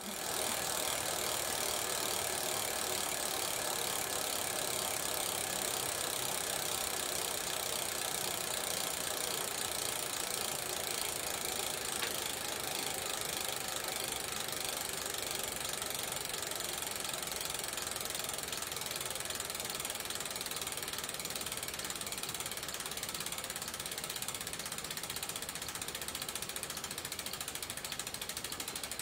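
Shimano Deore FH-M525 rear hub freewheeling as the wheel spins in a jig: a fast, steady buzz of the freehub pawls clicking over the ratchet. It slows and softens slightly as the wheel spins down.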